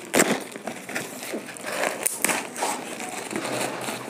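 Cardboard box being pried and torn open with a screwdriver: irregular scraping, crinkling and tearing of cardboard and packing tape, with scattered sharp clicks.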